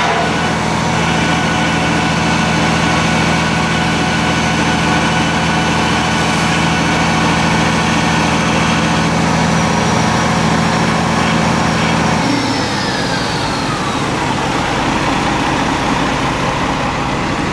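American LaFrance tiller fire truck's diesel engine running steadily at idle. About twelve seconds in, the low drone drops off and a whine falls in pitch over a few seconds as it winds down.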